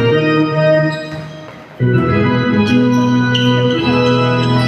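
Organ-like keyboard music playing long held chords. One chord fades out about a second in, and another starts just before two seconds in and is held.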